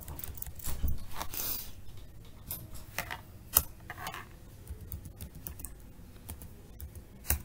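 Typing on a computer keyboard: irregular runs of key clicks, with a sharper, louder click about three and a half seconds in and another near the end.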